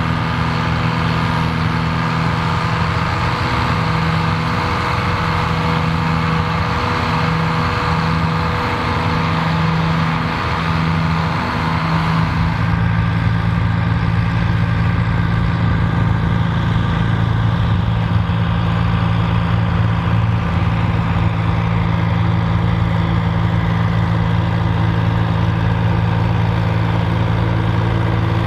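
Tandem tractor engines running steadily, with a shift in the note about twelve seconds in.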